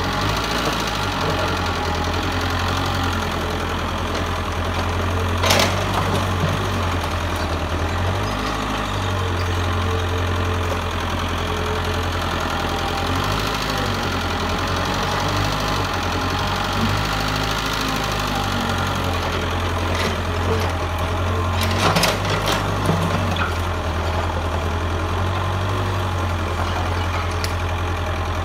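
Mitsubishi excavator's diesel engine running steadily with a low, even drone. A sharp clank comes about five seconds in, and a few more near the last third.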